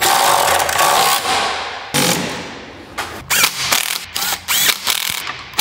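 Cordless power ratchet running engine-mount bolts down: one long run, a second shorter one about two seconds in, then several short bursts near the end as the bolts snug up.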